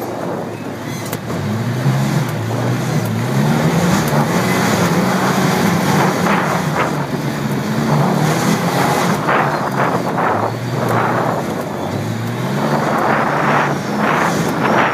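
Off-road vehicle engine running under way, its pitch rising and falling repeatedly as the throttle comes on and off, over a steady rushing noise.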